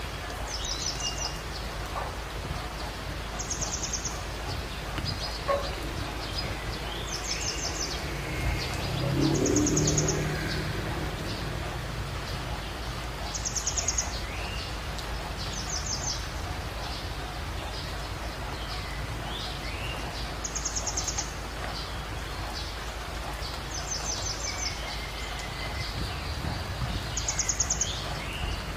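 Birds calling over a rice paddy: a short, buzzy, high call repeats every three to four seconds, with softer scattered chirps between, over a steady outdoor background noise. A brief low sound rises and fades about nine to ten seconds in.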